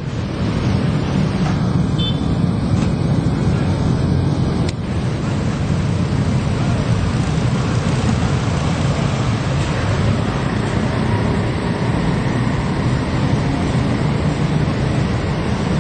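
Loud, steady, deep rumble of road traffic.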